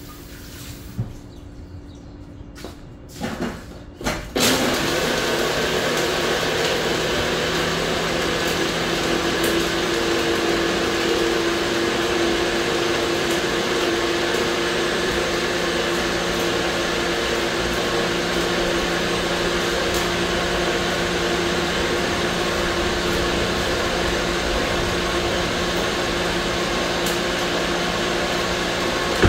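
A few light knocks as the cup is seated on a personal bullet-style blender, then its motor starts about four seconds in and runs steadily, blending a smoothie thickened with oats and granola.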